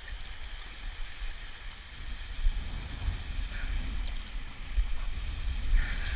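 Radio-controlled boat running on the water, its motor a faint whine that swells near the end, over a gusty low rumble.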